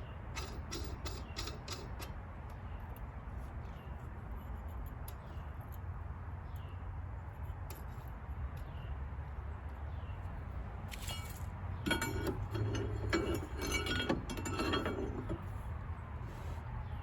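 Small metal parts and hand tools clinking and clattering during work on a golf cart rear drive hub: a quick run of light ticks at the start, scattered single clicks, then a busier clatter of metal-on-metal knocks and clinks for a few seconds near the end, over a steady low hum.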